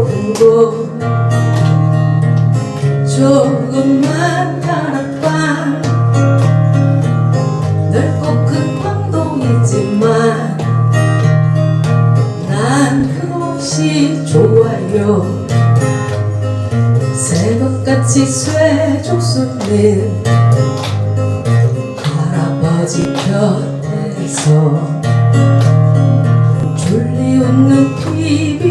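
Live acoustic guitar music with no lyrics: steady low bass notes shifting every second or so under a wandering melody line.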